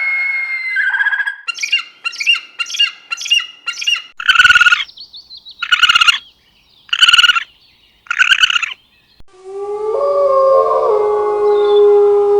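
A sequence of animal calls: a run of short bird-like chirps, then four loud harsh squawks about a second apart, then from about nine seconds a long steady call that holds one pitch.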